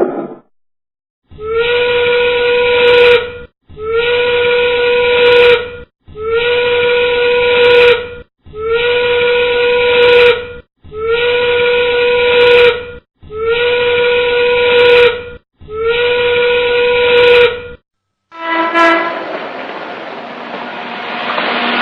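Train whistle blown seven times in a row, each blast a steady single-pitched tone about two seconds long that swells slightly before cutting off. Near the end a different sound takes over: a loud rushing hiss that builds.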